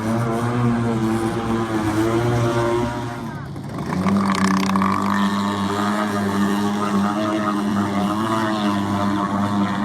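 Boat engine running steadily with a droning hum. It dips briefly about three and a half seconds in, then carries on at a slightly lower pitch.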